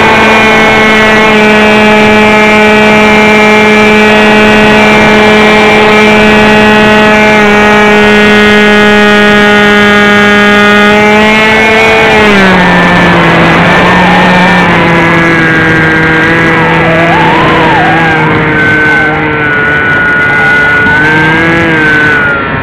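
Beta 1400 RC model airplane's motor and propeller, heard up close from the onboard camera: a loud, steady drone that drops in pitch about twelve seconds in, then wavers up and down.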